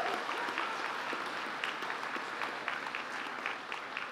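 Audience applauding, the clapping easing off toward the end.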